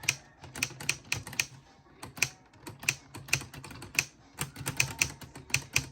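Keys of a LEGO Ideas 21327 Typewriter model being pressed one after another: plastic clicking and clacking in an uneven run of about four a second, with a short pause about a second and a half in.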